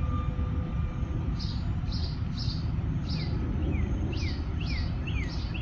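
A bird singing outdoors: a run of short high chirps repeated about twice a second, joined partway through by quick down-slurred notes, over a low steady background rumble.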